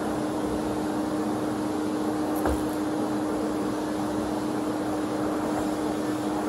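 Canister vacuum cleaner running steadily, its motor giving a constant tone over a rush of suction noise, with one light knock about two and a half seconds in.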